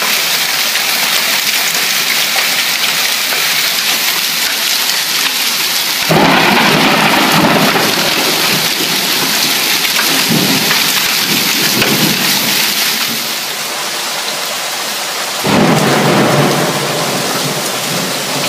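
Heavy hail and rain falling hard on pavement and lawn, a dense steady patter. A deep rumble of thunder comes in suddenly about six seconds in and fades by about thirteen seconds. Another comes in again near the end.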